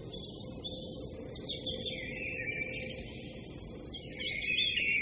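Small birds chirping and twittering continuously over a steady low background hiss.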